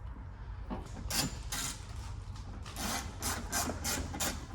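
A hand ratchet with an extension driving a T30 Torx screw into a door handle. Its pawl gives a run of short rasping strokes, sparse at first, then about four a second from about three seconds in.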